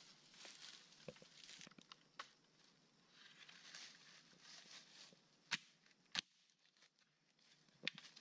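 Dry bamboo leaf litter and sticks rustling and crackling as they are handled on the forest floor, then three sharp wooden knocks about five and a half, six and eight seconds in, as a stick is worked into the ground to dig.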